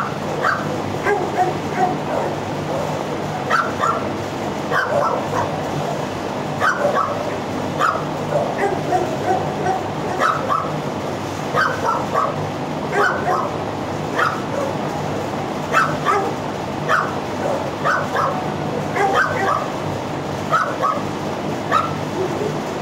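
Dogs in a shelter kennel block barking and yipping, short sharp barks coming in clusters throughout, over a steady low hum.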